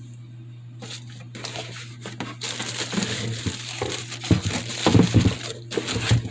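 Packaging being handled and unwrapped, crinkling and rustling, with a few low knocks about halfway through as parts are taken out of the box.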